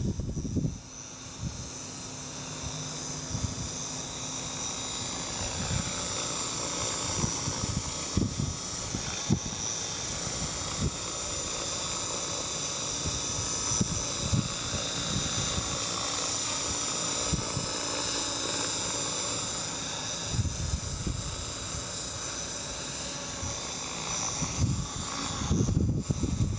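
TAYA Innovator radio-controlled helicopter in flight, its rotor and motor giving a steady high whine, with strong gusts of wind buffeting the microphone in irregular low thumps.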